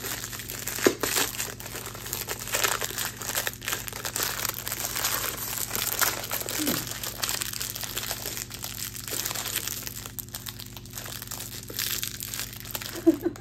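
Plastic packaging crinkling and rustling as it is handled and pulled open, with many sharp little crackles.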